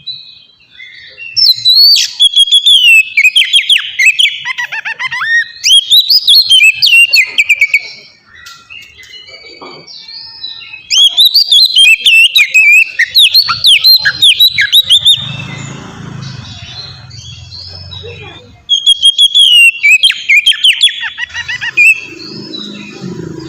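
Oriental magpie-robin (kacer) singing loudly in three long bursts of rapid, varied whistled phrases, with short pauses between them.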